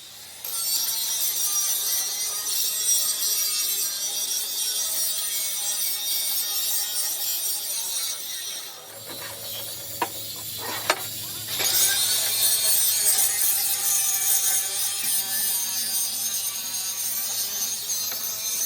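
Metalworking power tool on heavy steel plate: a steady high-pitched hiss that drops out for a couple of seconds near the middle, with two sharp clicks, then starts again.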